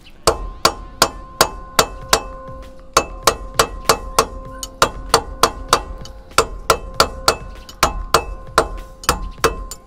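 Steady hammer taps on metal, about three a second, each with a short metallic ring, knocking a VW Combi front wheel hub's dust cap loose.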